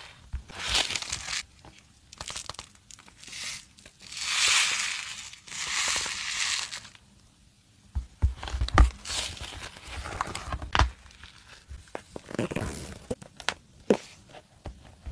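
Paper rustling as the stiff, decorated pages of a journal are turned, in several swells over the first seven seconds. After that, sharp taps and knocks with lighter rustling as the hardcover notebook is closed and handled.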